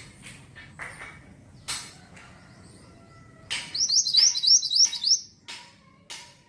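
Mantenan songbird singing: scattered short chirps, then about halfway through a loud run of about six quick rising whistled notes, followed by two more short chirps.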